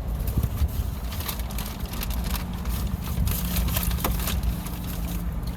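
Steady low hum inside a car, with a faint steady tone joining about halfway through, under scattered short crackles and clicks of food packaging being handled.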